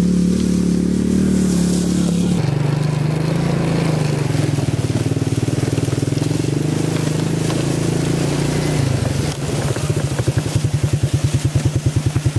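Quad bike (ATV) engine running as it is ridden over leaf-covered ground, its note shifting a couple of seconds in; in the last few seconds it takes on a regular pulsing beat.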